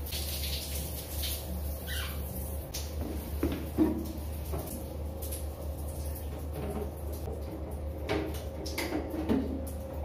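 Plastic casing of an AEG single-point shower water heater being handled and fitted by hand: irregular clicks, knocks and scrapes with a few short squeaks, over a steady low hum.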